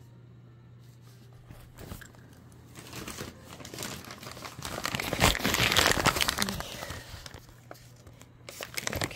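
Rustling and crinkling as things are handled close to the microphone, loudest around the middle, with a few sharp clicks near the end, over a steady low hum.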